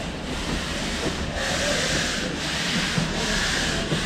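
Exhaust beats of the HG 3/4 narrow-gauge rack steam locomotive BFD 9, heard from a carriage behind it: slow chuffs of hissing steam, a little under one a second, as the train gets under way, over a steady rumble of the running train.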